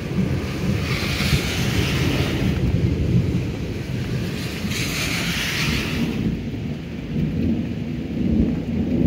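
A long roll of thunder rumbling through the whole stretch, with rain falling; a higher hiss swells twice, about a second in and again around five seconds.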